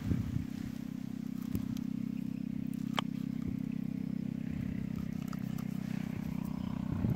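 A small engine running steadily at a low, even pitch. Over it, a knife taps lightly on a wooden cutting board a few times, one sharp tap about three seconds in.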